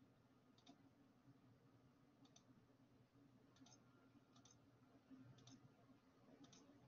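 Faint computer mouse clicks, about six, each a quick press-and-release pair, spread over a few seconds against near silence.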